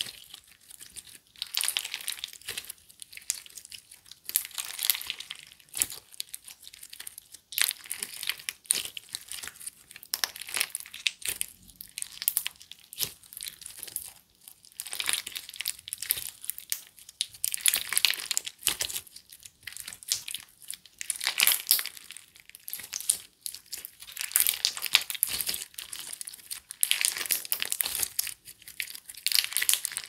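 Clear slime packed with colourful animal-shaped pieces being squeezed and folded by hand: sticky crackling and squishing in repeated squeezes, each about a second long, with short pauses between.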